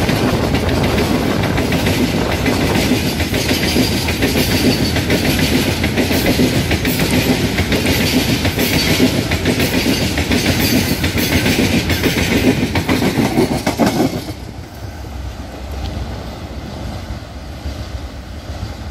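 Oil tank wagons of a long goods train rolling past close by, their steel wheels clattering over the rail joints. About fourteen seconds in the last wagon goes by and the sound drops sharply to a quieter, fading rumble as the train moves away.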